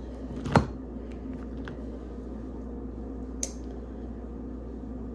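Wet handling sounds of sauce-covered seafood being dipped and pulled apart by hand, with one sharp click about half a second in and a fainter one past the middle.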